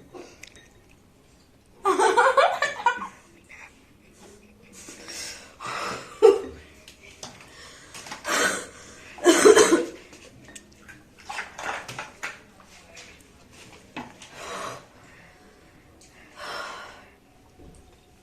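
A person breathing hard through the mouth in a string of loud, breathy gasps and puffs, with a short voiced cry about two seconds in and another near the middle. The reaction fits the burn of a hot chili just eaten.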